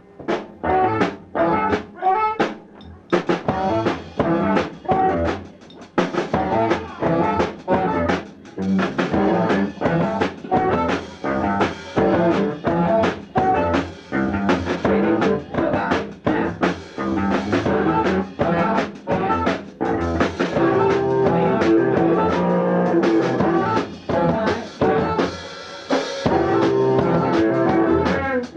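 No wave band playing live, drums beating busily and steadily under sustained pitched instruments; the sound fills out and stays loud from about twenty seconds in.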